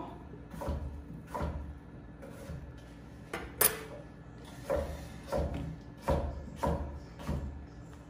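Butter knife scraping across a slice of bread as leave-in cream is spread on it: a series of about ten short scrapes and knocks, the loudest a little past halfway.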